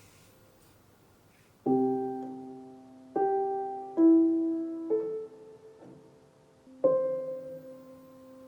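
Slow solo piano phrase: five chords struck one after another about a second apart, each left ringing and fading away.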